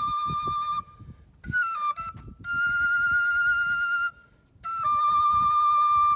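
Solo wooden flute playing long held notes, each sliding briefly into pitch, broken by two short pauses.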